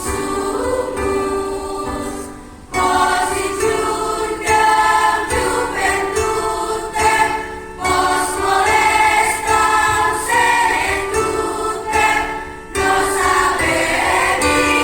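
A choir singing a song in several voice parts, held sung phrases with two short breaks between phrases, about two and a half seconds in and near the end.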